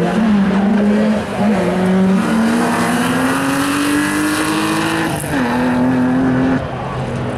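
BMW 3 Series (E36) rally car's engine pulling hard, its revs climbing steadily, then dropping sharply at an upshift about five seconds in.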